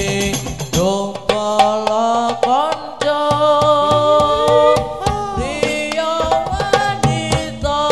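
Hadroh ensemble: a man singing an Islamic devotional song into a microphone over a steady rhythm of hand-struck frame drums (rebana).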